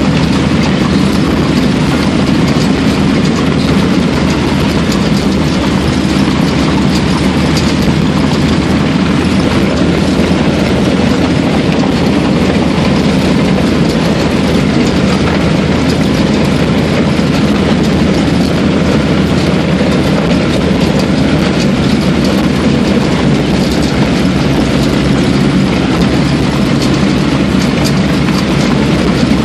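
1949 Bombardier snow bus running steadily across the ice: a loud, even drone of its engine and tracked running gear, heard from inside the cabin.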